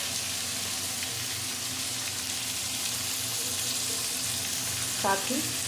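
Onion, tomato and chopped vegetables frying in oil in a kadhai, with a steady sizzle.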